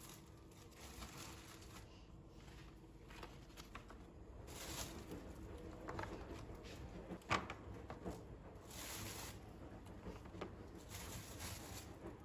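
Faint household handling sounds: soft rustling and light knocks, a few short hissing swells, and one sharp click about seven seconds in.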